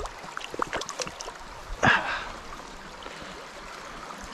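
Small mountain brook running steadily over its bed, with scattered small clicks and one brief, louder sharp sound about two seconds in.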